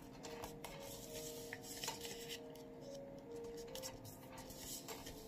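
Faint rustling and light scraping of a sheet of craft paper being folded into triangles, with fingers pressing the creases flat.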